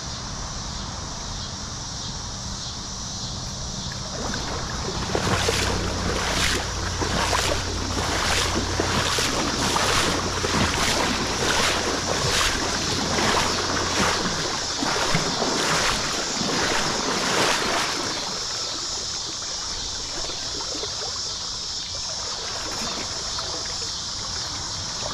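Tailwater river water running steadily. From about five seconds in, a run of rhythmic swishing splashes, roughly two a second, lasts about twelve seconds and then stops.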